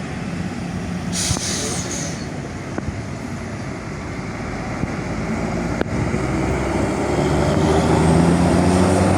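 A short burst of air-brake hiss about a second in. Then a heavy vehicle's engine grows steadily louder as it draws near. A single sharp click comes about halfway through.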